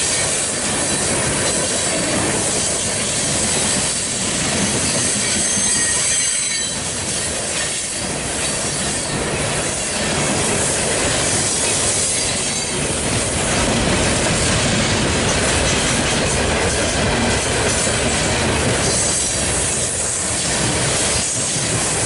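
Loaded coal hopper cars rolling past close by: a steady loud rumble and clatter of steel wheels over the rail. A high-pitched wheel squeal comes in about five to seven seconds in.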